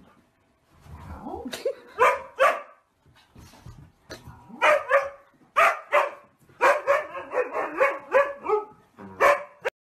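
A husky barking and yowling: a rising yowl about a second in, then a series of loud barks with a quick run of them in the second half. It cuts off abruptly near the end.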